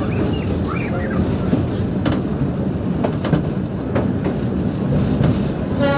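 Bangladesh Railway local passenger train running along the track, heard from its open doorway: a steady rumble with occasional sharp clicks of the wheels over rail joints.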